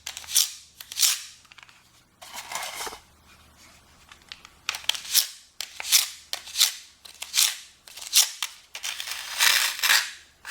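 Trowel scraping mortar into the joints of a brick wall: a series of short scraping strokes, about a dozen, with a pause of a second or so partway through and a longer stroke near the end.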